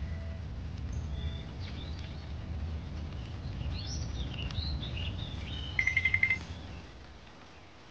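High chirping calls with short gliding notes, then a brief rapid trill about six seconds in, the loudest moment, over a low rumble that fades out near the end.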